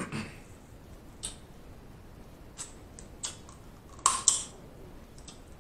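Boiled crawfish being peeled by hand close to the microphone: short, sharp clicks and crackles of shell breaking every second or so. A louder pair of wet mouth sounds about four seconds in as the crawfish meat is eaten from the fingers.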